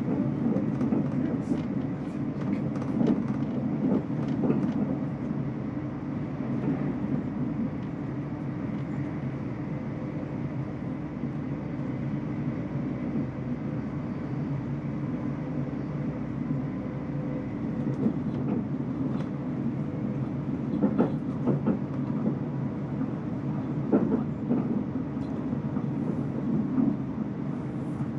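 Steady running rumble of a passenger train in motion, heard from inside a carriage, with a few sharper knocks in the second half.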